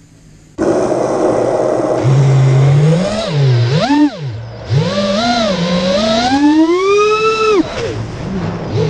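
Armattan Marmotte FPV quadcopter's brushless motors spinning up suddenly about half a second in as it lifts off from the grass, then whining loudly with the pitch rising and falling as the throttle is worked, including a long climb in pitch near the end.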